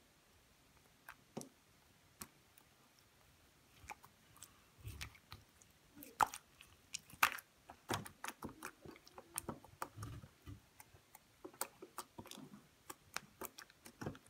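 Green slime being kneaded and squeezed by hand, giving irregular small wet clicks and pops, sparse at first and coming thick and fast from about four seconds in.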